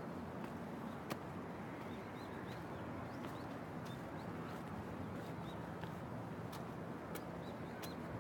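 Footsteps climbing stone stairs, sharp steps roughly every half to two-thirds of a second, over a steady outdoor hiss. Small birds chirp briefly now and then.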